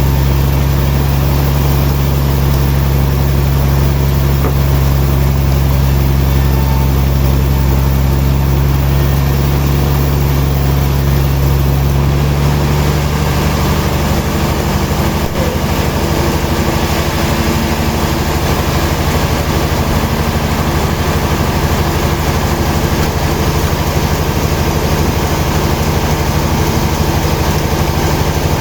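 Heavy sawmill machinery running steadily with a deep engine-like hum. About 13 seconds in, the lowest part of the hum drops away and the tone shifts, then holds steady.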